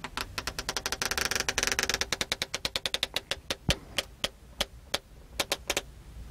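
Foley creak of a bow being drawn, made by working a ballpoint pen against a wall-bracket instruction sheet: a fast run of dry clicks that thins into slower, spaced-out clicks near the end.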